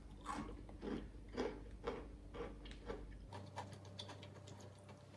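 A person chewing a mouthful of chocolate chip cookie: faint, regular chews about two a second.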